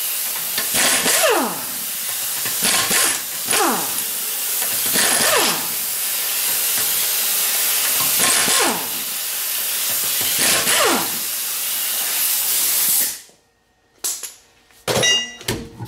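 Pneumatic impact wrench spinning out the wheel's lug bolts: a steady hiss of exhaust air with a whirring tone that falls in pitch about five times. It cuts off suddenly near the end.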